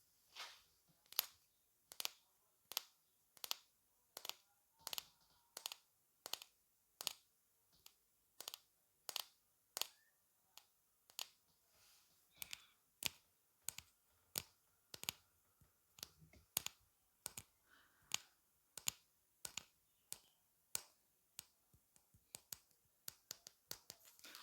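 Steady, crisp ASMR taps, about one and a half a second, coming closer together near the end.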